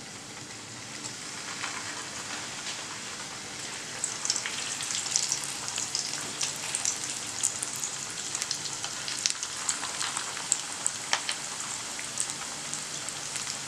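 Chicken-stuffed bread rolls deep-frying in medium-hot oil in a pan: a steady sizzle with sharp crackles and pops, growing busier about four seconds in.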